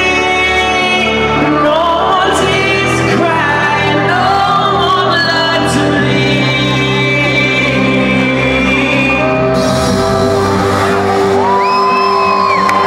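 Live trance music over a concert PA, with a male vocalist singing into a microphone and the audience shouting along; a long held note near the end.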